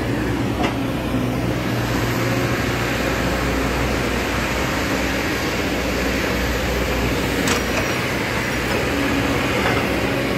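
Kobelco SK210 excavator's diesel engine running steadily, with a couple of short clicks or knocks, one about two-thirds of the way through.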